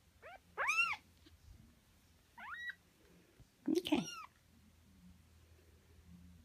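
Young kittens mewing: about four short, high calls, the loudest about a second in and about four seconds in.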